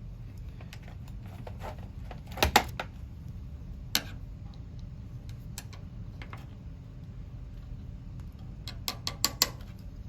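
Sharp clicks and taps of a Lansky knife sharpening kit being handled, likely as the hones are swapped from 120 to 280 grit: a quick cluster about two and a half seconds in, a single click near four seconds, and a run of four or five clicks near the end.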